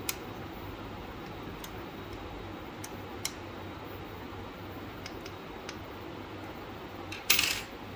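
Scattered faint clicks of an Allen key working the small screws of an end-stop bracket on a metal plate, over a steady hiss. A brief louder burst of noise comes near the end.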